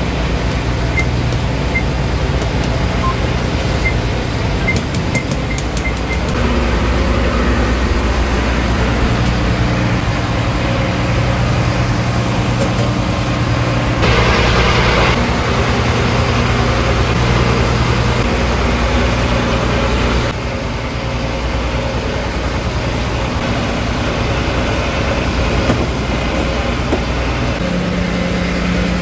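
Fishing boat's engine running steadily under way, a continuous low drone. About halfway through there is a brief burst of noise over it.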